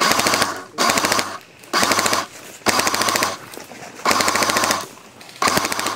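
Airsoft gun firing six short bursts of rapid automatic fire, each under a second long with brief pauses between.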